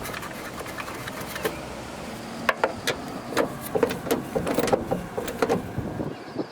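A nut being run down with a socket wrench over the van's plastic tail-light panel: a run of irregular clicks and knocks, thicker from about halfway through.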